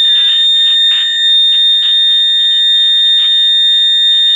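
A 1970 Audition AM transistor pocket radio's speaker gives a loud, steady high-pitched whistle while the radio is powered up with its open AVC filter capacitor bridged by a test capacitor.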